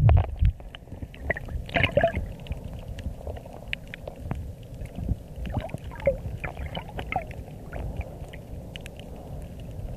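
Muffled underwater sound picked up by a submerged camera: low rumbling and knocking from water movement and handling, with scattered sharp clicks and a few short bubbly gurgles.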